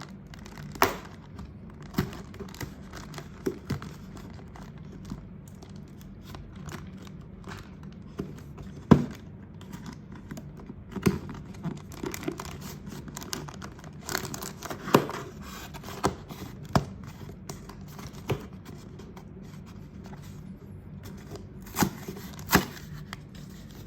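Cardboard Lego set box being opened by hand: tearing and crinkling as it is unsealed, with scattered sharp taps and knocks, the loudest about 9 seconds in, over a low steady hum.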